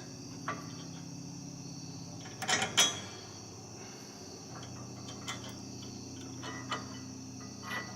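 Crickets chirring steadily, with a few light knocks and clinks from handling metal parts and tools. The loudest clatter comes at about two and a half seconds in.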